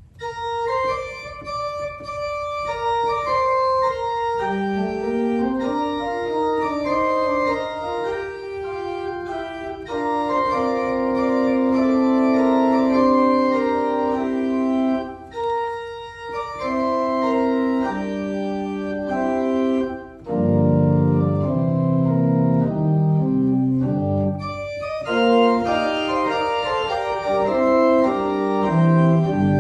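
Organ postlude after the benediction: held chords that change every second or so, with brief breaks between phrases and deep bass notes coming in about two-thirds of the way through.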